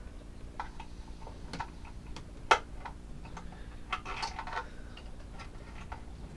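Small scattered clicks and scrapes of a screwdriver working the screws of a temperature controller's plastic terminal block, with one sharper click about two and a half seconds in.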